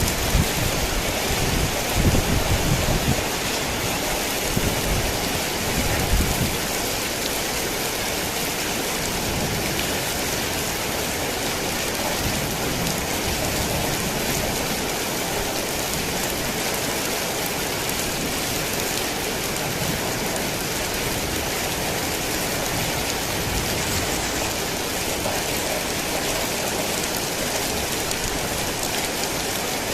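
Heavy rain falling steadily in an even hiss. Low rumbles of thunder come and go through the first six seconds or so, then die away.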